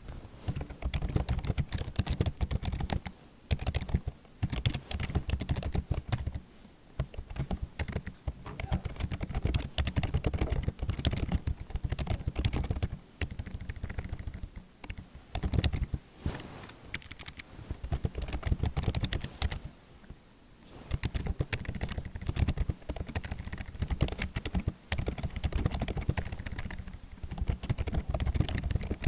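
Fast typing on a computer keyboard: a dense, continuous run of key clicks, broken by several brief pauses.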